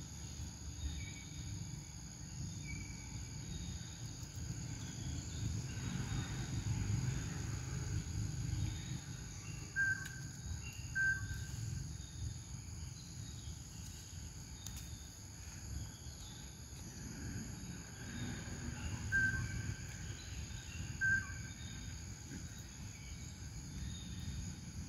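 Outdoor woodland ambience: a steady high insect drone over a low rumble. A few short high chirps come in two pairs, one pair just under halfway through and another about three-quarters of the way through.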